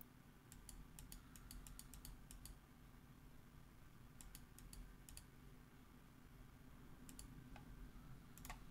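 Faint computer mouse clicks in quick runs of several, with pauses between, over a low steady hum.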